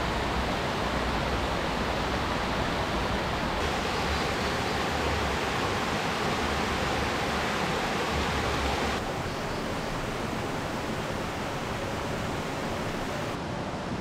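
Rain-swollen stream rushing over boulders and small rapids: a steady rushing noise that drops a little in level about nine seconds in.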